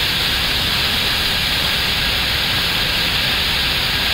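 Steady rushing hiss of air noise on the flight deck of an Airbus A321neo on short final approach.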